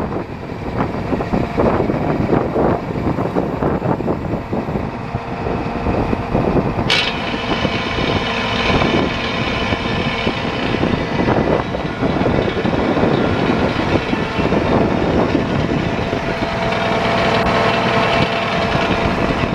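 Case IH 4894 four-wheel-drive tractor's diesel engine running at idle, heard close up from the rear of the tractor, with a higher hiss joining about seven seconds in.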